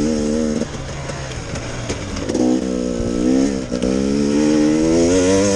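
Enduro dirt bike engine revving as the rider works the throttle. The revs drop away about half a second in, then pick up again about two and a half seconds in and hold.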